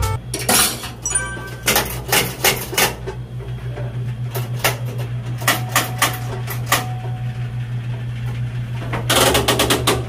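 Ignition knob of a Rinnai gas salamander grill turned again and again, its igniter clicking in an irregular run with a quick cluster of clicks near the end, over a steady low hum. The burner does not catch because the gas supply has not been turned on.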